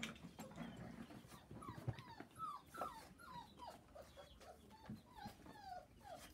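Brittany puppies whimpering and squeaking: a string of short, high calls that each drop in pitch, about two or three a second, with a few light knocks among them.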